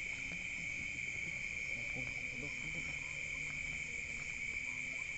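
A steady, unbroken chorus of night insects trilling in a rice paddy, a continuous high-pitched drone, with faint low calls scattered underneath.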